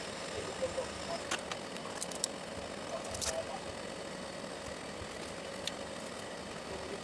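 Hot air tool blowing steadily, warming adhesive to set a rubber coating, with a few light clicks.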